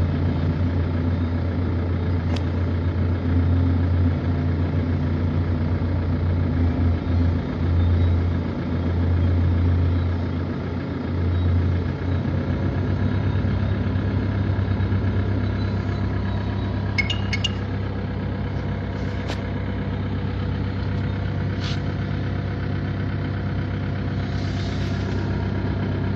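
Heavy diesel engines of large earthmoving machines (a big excavator and a crawler bulldozer) running with a steady deep drone, swelling and easing a few times under load. A few faint clicks come near the end.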